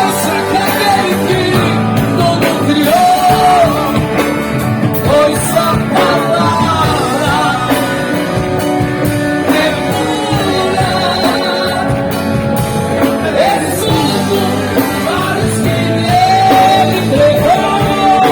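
Live rock band playing, with drums, electric guitar, bass and keyboard, and a melody line that slides in pitch, falling steadily near the end.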